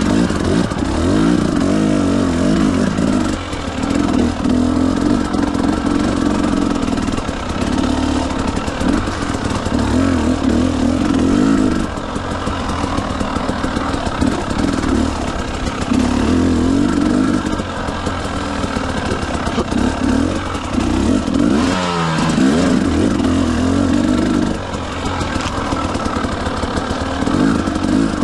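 Motorcycle engine under way, its revs repeatedly climbing and easing off every few seconds. About 22 seconds in the revs drop sharply and then climb again.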